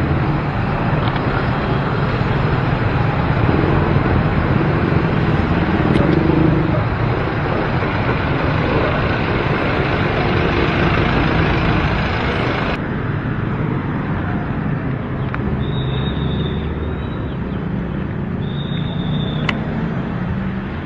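Road-vehicle engine and traffic noise picked up by an action camera's built-in microphone, a steady, dense rumble. About two-thirds of the way through it changes abruptly and becomes a little quieter.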